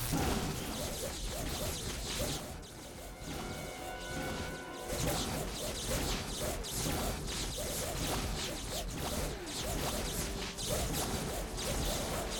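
Sci-fi battle sound effects: a Jaffa staff weapon blast right at the start, then a long run of crashing impacts and whooshes.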